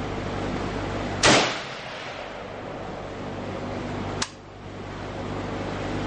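Two rifle shots about three seconds apart from a Yugoslavian M59/66 SKS in 7.62×39. The first is loud with a short ringing tail; the second is a sharper, quieter crack.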